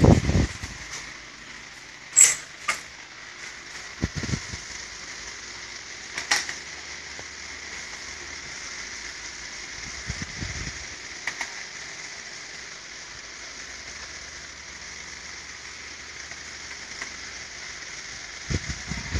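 A steady hiss with a few sharp clicks, about two seconds in, again near six seconds and once more near eleven seconds, from parts inside a Riso digital duplicator being handled and fitted.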